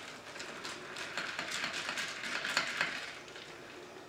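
A long spoon stirring a michelada of beer and tomato juice over ice in a glass, clinking over and over against the glass and the ice in small irregular taps.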